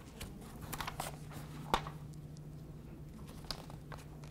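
Sheets of paper being shuffled and rustled at a lectern, with one sharp knock about a second and a half in, over a low steady hum.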